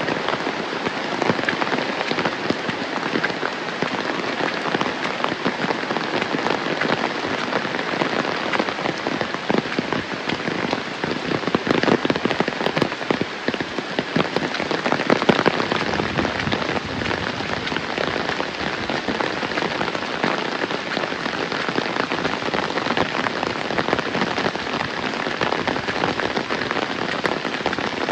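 Heavy rain falling steadily: a dense hiss of countless drops hitting surfaces, briefly heavier about halfway through.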